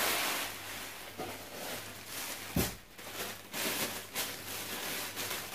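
Thin plastic wrapping rustling and crinkling as a stand mixer's wire whisk attachment is unwrapped, with a sharp knock about two and a half seconds in.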